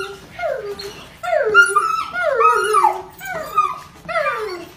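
Dog whining and crying in excited greeting: a string of high whimpers, each sliding down in pitch, coming one after another with some overlapping.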